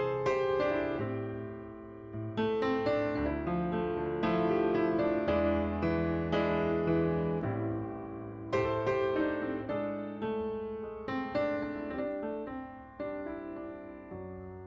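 Background music: gentle solo piano playing chords and melody notes.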